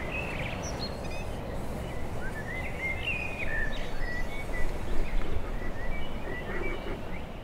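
Small birds singing outdoors, a run of short high chirping phrases, over a steady low rumble of outdoor background noise.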